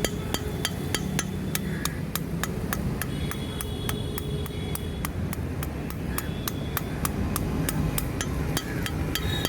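Blacksmith's hammer striking steel on an anvil in a steady rhythm, about four blows a second, each with a short metallic ring: forging the spanner into a knife blank.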